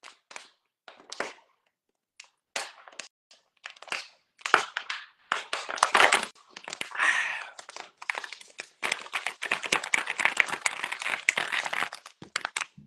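Thin plastic water bottle crinkling and crackling in the hand while someone drinks from it, the walls denting and popping. Scattered crackles at first, then almost continuous crackling from about halfway in.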